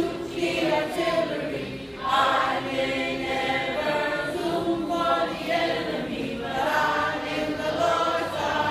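A children's choir singing together, a conductor beating time, the song carried in sustained phrases with brief pauses between them.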